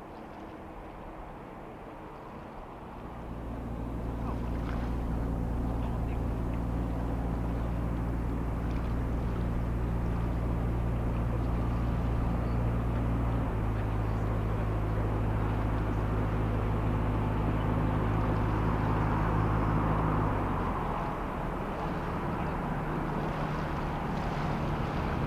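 Low engine hum with several steady pitches that swells in about three seconds in, shifts pitch about halfway through and drops away again near the end, over a steady background rush.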